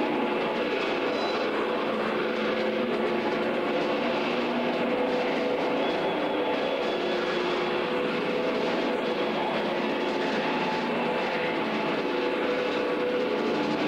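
Live free-improvised ensemble music: a dense, steady wash of noise with many short held tones drifting in and out of it, with no beat or melody.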